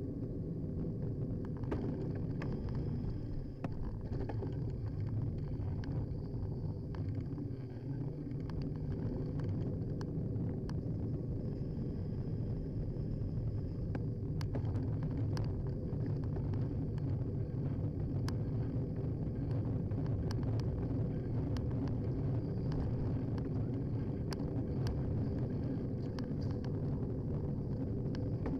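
Rumble of wind and road noise from a Carrera CX bicycle on the move, picked up by a handlebar-mounted camera, with scattered small clicks and rattles throughout.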